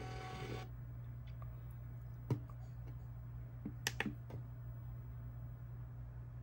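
A few light clicks and taps from handling: one about two seconds in, then a quick cluster of three near four seconds, over a low steady hum.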